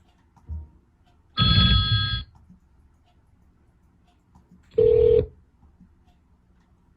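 Two short Windows XP system sounds played through a Logitech Z906 speaker system: first a bright chime of about a second made of several steady high tones, then a half-second sound on one lower tone, both with heavy bass under them. A small thump comes just before the first.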